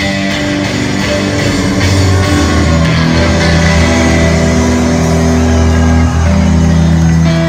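Live rock band playing loudly, with electric guitar to the fore over sustained low notes.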